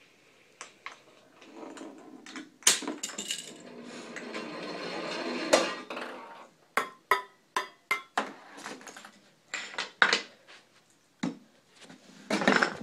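Small plastic balls and toy pieces knocking, clattering and rolling through a homemade chain-reaction machine. A ball rolls, louder for a couple of seconds until it ends in a sharp knock, then comes a run of crisp knocks a fraction of a second apart, and a dense clatter near the end.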